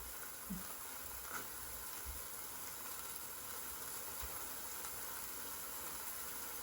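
Burgers sizzling faintly on a grill: a steady, quiet hiss, with a few soft knocks.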